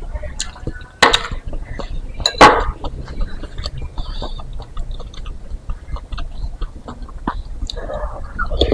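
Close-up eating of meatball soup: wet chewing and mouth sounds with a spoon clinking against the bowl, in many short clicks, with two louder sharp sounds about a second and two and a half seconds in.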